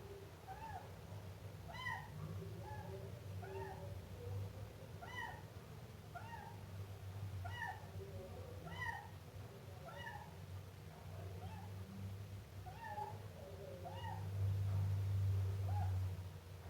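Siamese kitten meowing over and over, short high calls that rise and fall, about one a second. A steady low hum runs underneath and grows louder near the end.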